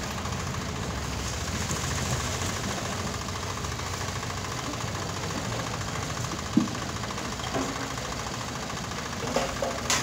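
A small engine runs steadily with a fast even pulsing. A single sharp knock comes about six and a half seconds in, and a few lighter knocks come near the end.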